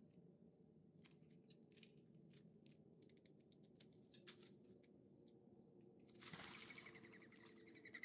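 Faint, sharp clicks of a Steller's jay's bill pecking seed on a wooden stump feeder. About six seconds in, a harsh, rasping bird call starts and carries on.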